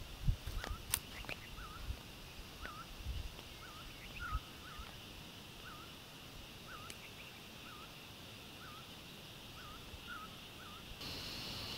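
A bird calling with a short hooked note repeated steadily, about one and a half a second, over a steady high insect buzz that grows louder near the end. A few soft low thumps on the microphone in the first half.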